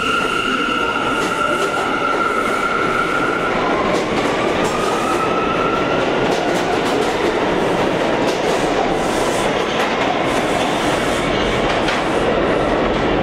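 Ten-car Bombardier R179 subway train accelerating out of the station: a steady rumble of wheels on rail with scattered clicks over the joints. Over it runs a steady motor whine, which begins to rise in pitch about four seconds in as the train picks up speed.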